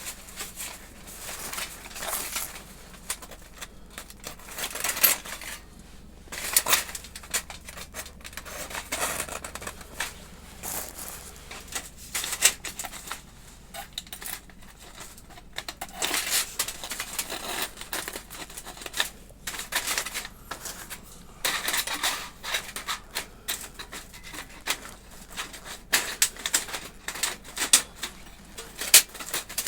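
Thin metal plates of a flat-pack camping stove being handled and slotted together: irregular light clinks, clicks and short rattles of sheet metal.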